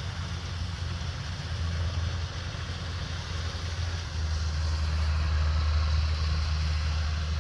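Kubota DC-105X rice combine harvester's diesel engine running steadily, a low drone under a steady hiss of machinery, growing louder about four seconds in.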